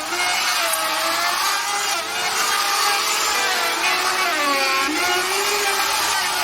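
Handheld electric power tool working wood, its motor whine dipping in pitch each time it is pressed into the work and rising again as the load eases, several times over.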